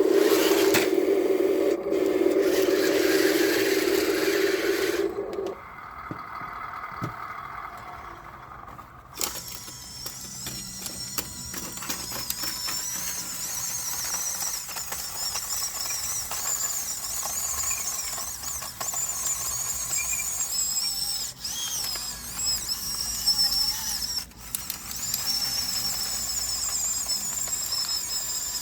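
Small electric motors of radio-controlled construction models whining as they work. A lower whine stops about five seconds in; from about nine seconds a high whine wavers up and down in pitch as the speed changes.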